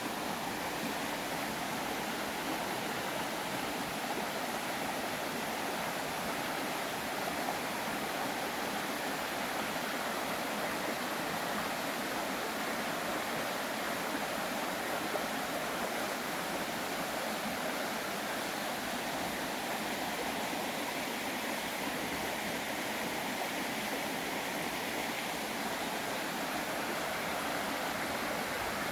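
Water of a mountain valley stream rushing steadily.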